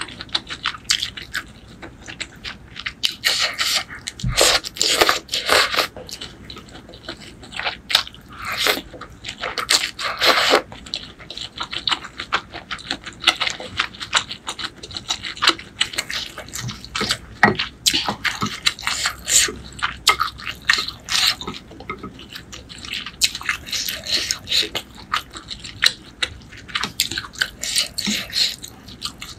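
Close-up eating sounds of pork noodle soup: noodles slurped and chewed, with wet mouth clicks and smacks coming in quick, irregular succession.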